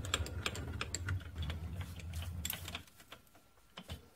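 Quick, light clicks and taps over a low rumble; the rumble stops about three seconds in, leaving a few scattered clicks.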